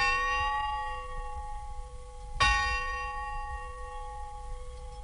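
Large tower bell struck at an even pace, about two and a half seconds between strokes. The first stroke lands right at the start and a second about halfway through, each ringing on and slowly fading.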